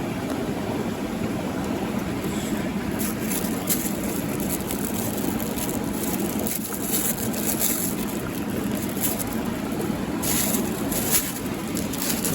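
Steady rushing of a mountain stream, with light rustling or crackling sounds near the end.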